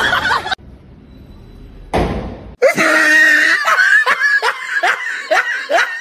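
Laughter in a quick run of short, rising giggling syllables, about three a second, starting a little over halfway through after a short pause.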